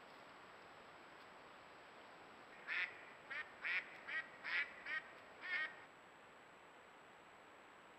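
An animal calling: a quick series of seven short calls with a wavering pitch, starting near three seconds in and over within about three seconds.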